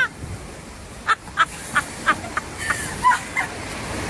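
A bird giving a quick series of short squawks, about three a second, starting about a second in, over a steady background hiss.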